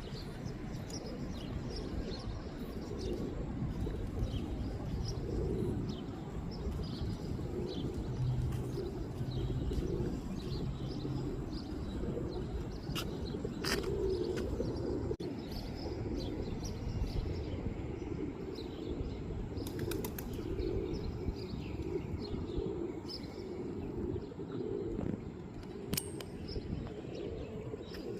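A flock of pigeons cooing continuously, with wings flapping at times and small chirps over the top. A few sharp clicks stand out, around the middle and later on.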